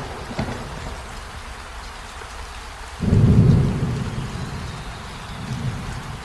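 Steady rain, with a loud low rumble of thunder breaking in about halfway through and dying away over a couple of seconds.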